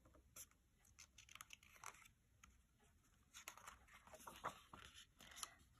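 Near silence with faint paper rustles and light ticks as the pages of a picture book are handled and begin to turn, mostly in the second half.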